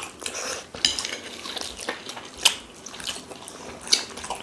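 Eating at a table: a few sharp clinks of cutlery against a plate, the strongest about halfway through and near the end, among soft chewing and mouth sounds.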